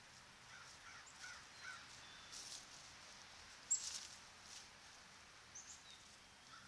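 Faint rustling and scratching in dry fallen leaves from squirrels and birds foraging, with a few short faint bird calls early on and one sharp click a little over halfway through.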